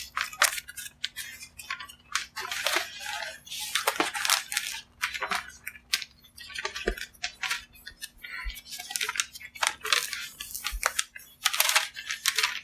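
Adhesive contact paper being handled and its backing peeled off: irregular crackling, crinkling and light tapping sounds, over a faint steady hum.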